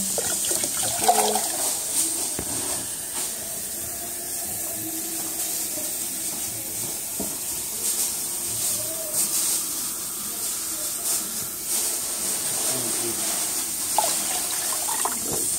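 Water pouring in a steady stream into a cut-glass pitcher, filling it.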